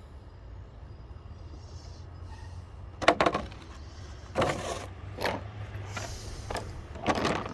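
Metal hand tools, vintage sockets and wrenches, being picked up and set down: a sharp clack about three seconds in, then a few shorter clatters.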